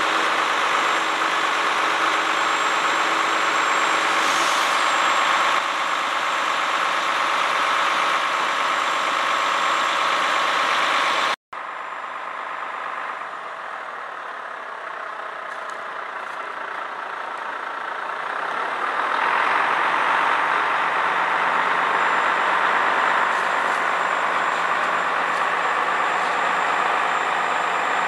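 Engine of the crane lorry running steadily under load, driving the hydraulic crane as it hoists a truck. About eleven seconds in the sound cuts out for an instant and comes back quieter, then rises again about two-thirds of the way through.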